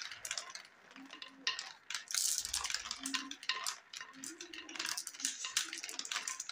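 Marbles rolling and clattering down a plastic building-block marble run, with many quick clicks as they knock through the chutes and short rolling hums as they circle the funnel.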